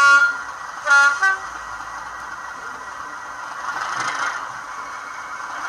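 N gauge DCC sound decoder playing a Class 55 Deltic's horn through the model's small speaker: a blast right at the start, then a short high-then-low two-note toot about a second in, over a steady background of decoder engine sound.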